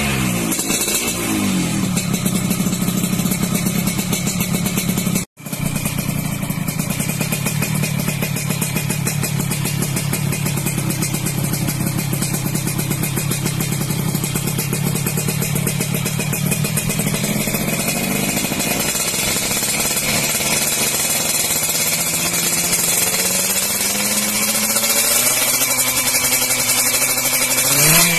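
Yamaha RX-King two-stroke single-cylinder engine running through aftermarket YKJ racing exhausts. A rev falls back to a steady idle, the sound cuts out briefly about five seconds in, and the idle resumes, now through a chrome 'Python' pipe. Over the last third the throttle is blipped again and again, ending on a sharp rev.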